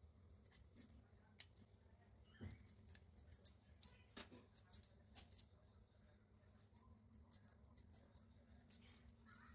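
Near silence, with many faint, scattered light clicks: glass and metal bangles clinking as hands fold samosa pastry.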